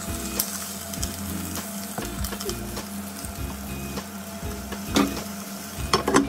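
Pompano pieces sizzling as they fry in a pot, with tongs clicking against the pot as the fish are turned and a lid clattering onto it near the end. Soft background music plays underneath.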